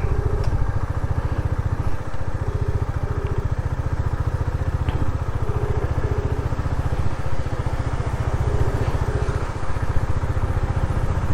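KTM Duke 250's single-cylinder engine running steadily, with a phone's ringback tone of short double beeps repeating every few seconds while an outgoing call goes unanswered.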